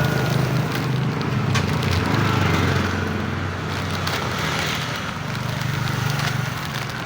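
A steady low engine hum with scattered clicks and clatter over it.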